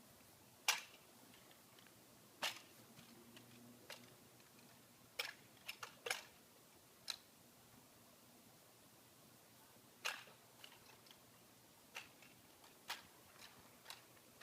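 Sharp, irregular clacks and slaps as a spinning rifle is caught and struck by the hands, about a dozen over the stretch, with gaps of a second or more between them and a loud one about a second in.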